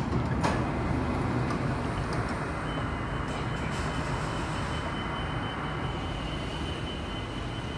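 Steady rumble of an MRT train at an underground station platform, with a knock at the very start and a thin, steady high whine coming in a few seconds in.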